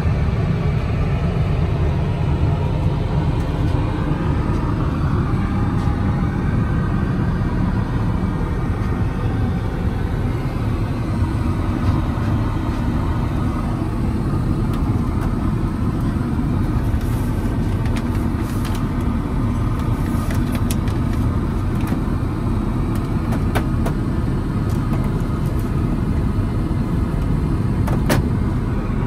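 Steady low rumble of an Airbus A380 cabin in flight, the engine and airflow noise heard inside the lavatory. Several sharp clicks and knocks of drawers and cabinet doors being opened come mostly in the second half and again near the end.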